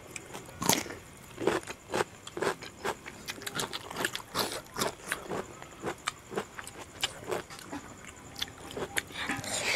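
Close-miked chewing and lip-smacking of rice and pork curry eaten by hand: irregular wet clicks and smacks, several a second.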